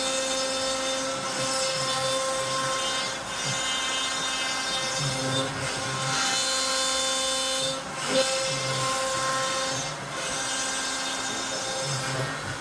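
CNC router cutting wood: the spindle runs steadily, while a lower motor tone starts and stops every second or so as the machine moves, with a brief sharp knock about eight seconds in.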